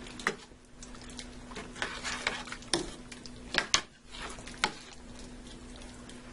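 A spoon stirring chicken broth in a large stainless steel skillet: liquid sloshing and several sharp clinks of the spoon against the pan, two of them close together near the middle, over a faint steady hum.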